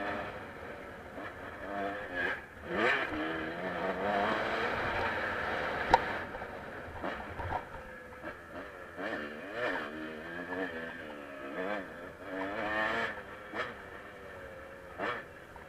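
Dirt bike engine ridden on a motocross track, revving up and down again and again as the rider works the throttle and gears, with a sharp knock about six seconds in.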